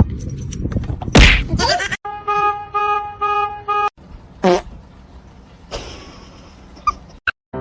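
A loud thump, then a horn honking in a quick run of about five evenly spaced beeps, followed by a short sliding squeal.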